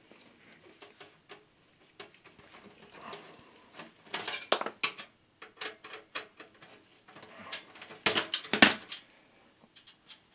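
Screwdriver working the screws of a 92 mm rear case fan against a steel computer chassis, then the fan being lifted free: scattered metal clicks, taps and scrapes, bunched in two clusters, the louder one near the end.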